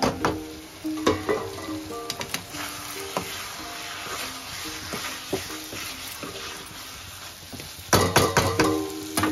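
Spoon scraping and clinking against a small iron kadai while stirring a sizzling onion-tomato masala with potato pieces, with a quick run of loud scrapes near the end. A clank as the steel lid comes off at the start.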